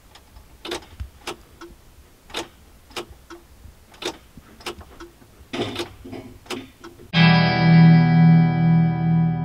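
John Deere 7200 tractor's ignition key switched over and over, giving sharp clicks about every half second while the engine does not crank: the starter-circuit switch fault behind its no-crank problem. About seven seconds in, loud distorted electric guitar music starts and drowns everything else.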